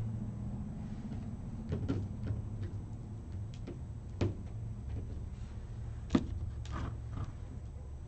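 A few light, separate taps and clicks as small resin decoration pieces are picked off a plastic plate and handled on the table, over a steady low hum.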